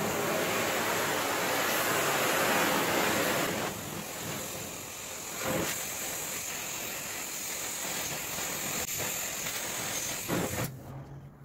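Oxy-acetylene torch flame hissing steadily as it heats a steel axle tube to draw the bend out, louder for the first few seconds, then stopping abruptly near the end.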